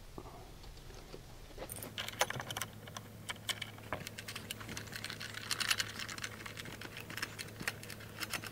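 Light, irregular clicking and tapping of small metal hardware: bolts and nylon-insert nuts being handled and fitted through a metal bracket against a plastic bandwheel guard.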